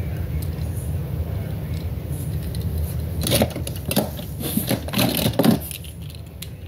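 Metal diecast toy cars clinking and clattering against each other in a cardboard box as a hand rummages through them, in a dense run of clicks about halfway through. A steady low rumble lies underneath.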